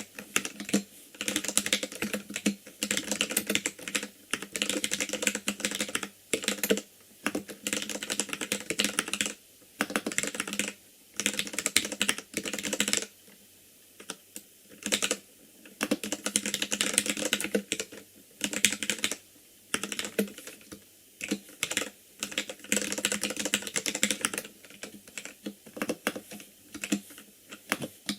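Typing on an ikbc Poker II mechanical keyboard with Gateron Red linear switches: rapid runs of keystrokes clacking in bursts, broken by short pauses.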